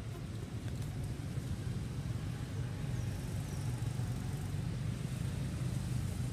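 Steady low rumble of a motor vehicle engine running, with two faint high chirps about three seconds in.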